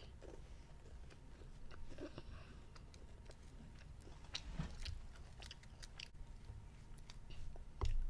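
A child chewing a mouthful of candy-coated chocolate rocks, with scattered small crunches and clicks. A louder knock comes just before the end.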